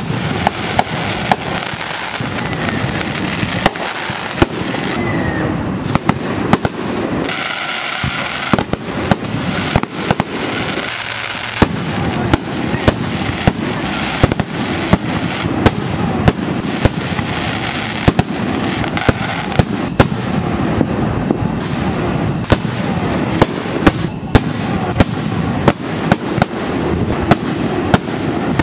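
Fireworks display: aerial shells bursting in a dense, continuous run of sharp bangs, about one or two a second, many overlapping over a constant noisy crackle.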